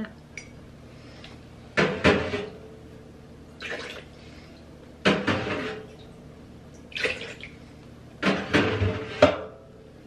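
Standing water being scooped out of a front-loading washing machine's drum with a ceramic mug and poured into a plastic basin, in about four separate pours with the mug knocking against things. The machine has failed to drain and is being emptied by hand.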